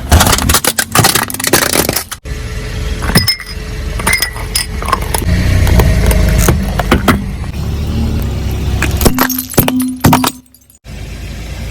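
Car tyre rolling over and crushing crunchy objects: a dense run of cracking and crunching over a low rumble. It breaks off briefly about ten and a half seconds in.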